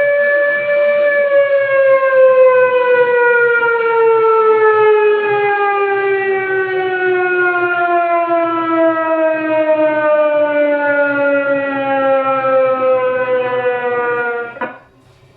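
Siren sounding as a fake fire alarm: one long tone that rises slightly, then falls slowly and steadily in pitch for more than ten seconds before cutting off suddenly near the end.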